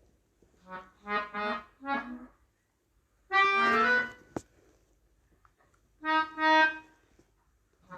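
Melodica played in three short bursts: a few quick notes about a second in, a louder held chord a little after three seconds, and two more notes around six seconds.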